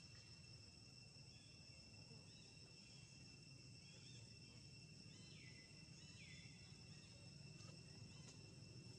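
Faint outdoor ambience: a steady high-pitched insect drone, with a few short falling chirps about halfway through.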